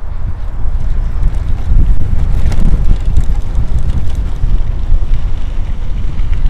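Wind buffeting the microphone of a camera on a moving bicycle, a loud, steady low rumble, with a few faint clicks and rattles from the bike riding over the bumpy ground about halfway through.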